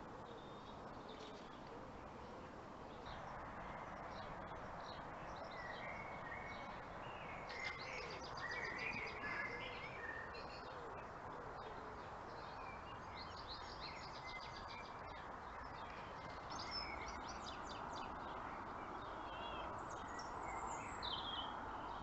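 Small songbirds chirping, with short rapid trills now and then, over steady outdoor background noise.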